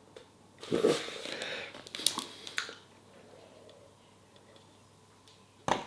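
Quiet mouth and handling noises: a short burst of breath about a second in, faint rustling with a few small clicks, then a sharp knock near the end.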